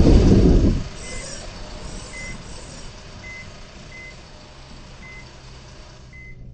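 A loud low rumble cuts off under a second in. Then a short, high electronic beep repeats about once a second over a faint low hum.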